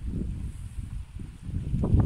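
Wind buffeting the microphone: a gusting low rumble that eases about a second in and picks up again near the end.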